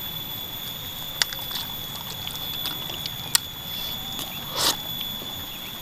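Quiet eating of bakso meatball soup with chicken feet: a few sharp clicks and one short, louder noisy sound about four and a half seconds in, over a steady high whine.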